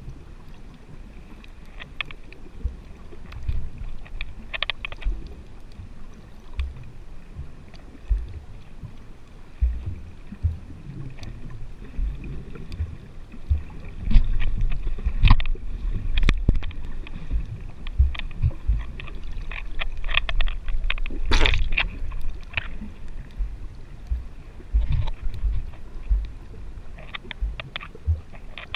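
Muffled underwater noise picked up through a GoPro's waterproof housing while snorkelling: uneven low rumbling and knocks from moving water, with scattered sharp clicks, busiest in the middle stretch.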